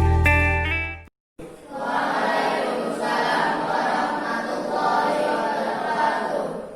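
Guitar music cuts off about a second in; after a brief silence, a group of many voices shouts or chants together.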